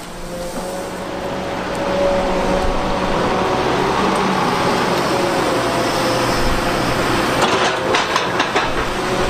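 Doosan DX380 tracked excavator with a rock grab working: diesel engine and hydraulics running steadily under a dense rushing noise of surf. A few sharp knocks near the end as a boulder is dropped into the water.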